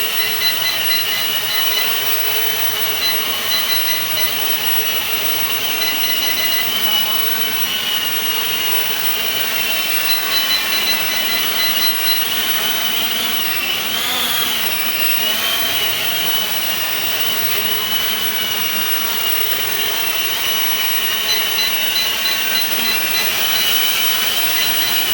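Propel Navigator Morph Plus mini folding quadcopter hovering: a steady high whine from its small motors and propellers, wavering in pitch about halfway through. Several runs of quick short beeps, typical of the controller's trim buttons being pressed to stop the drone drifting forward.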